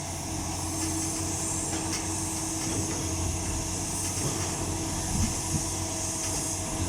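Cat 6020B hydraulic excavator running steadily: a low engine hum under a strong, steady hiss, with a few light knocks.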